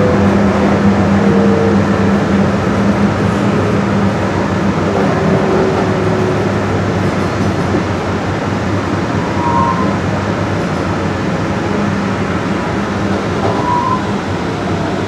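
Dallas Area Rapid Transit light rail train running, heard from inside the car: a steady rumble and low hum, with a faint falling whine in the first few seconds. The sound eases gradually as the train slows alongside a station platform.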